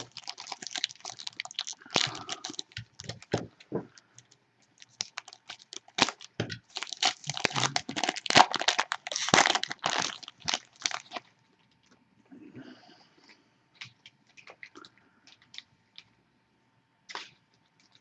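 A foil trading-card pack wrapper crinkling and tearing as it is opened, dense crackling for about eleven seconds, then quieter scattered clicks and rustles as the cards are handled.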